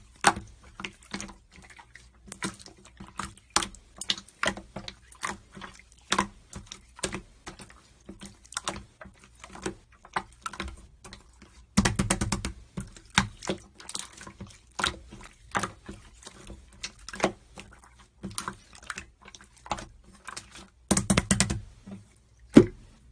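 An irregular run of light clicks and taps, a few per second, with busier flurries about halfway through and again near the end, and one sharper knock just before the end.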